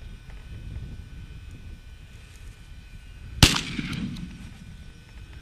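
A single shotgun shot about three and a half seconds in, sharp and loud, its report echoing and fading over about a second.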